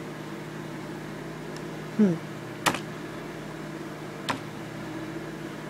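Steady low background hum, with a brief falling hum of a man's voice about two seconds in and two sharp clicks, one shortly after and one past the middle.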